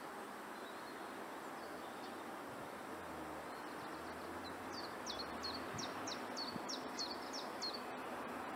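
A songbird sings a run of about ten quick, repeated notes, each sliding downward, roughly three a second. They start about halfway through and sit over a steady outdoor background hiss.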